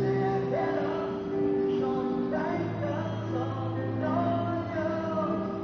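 Live music from far off: a man singing a song to his own instrumental accompaniment, with held chords that change about two and a half seconds in, heard across a large hall.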